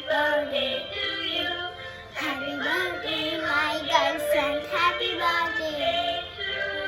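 A song with a high singing voice whose melody moves up and down, briefly dropping away about two seconds in.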